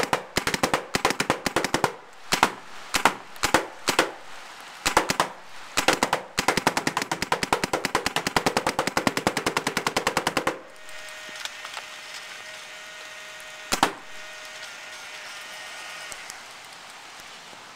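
Empire Axe paintball marker firing on ramping: quick strings of sharp pops, then a long fast burst of about ten shots a second that stops about ten and a half seconds in, and one last shot a few seconds later. Hard rain patters once the firing stops.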